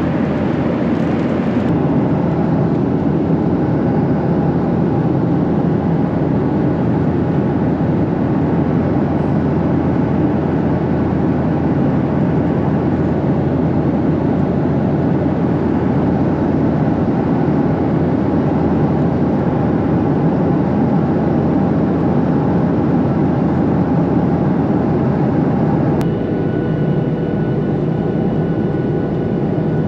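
Steady engine and airflow noise heard inside a jet airliner's cabin. Near the end it changes abruptly to a similar drone carrying a few faint steady tones.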